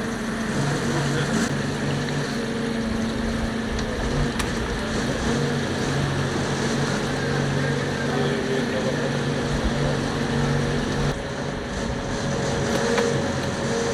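Fishing boat's engine running steadily over a haze of wind and sea noise, easing briefly about eleven seconds in.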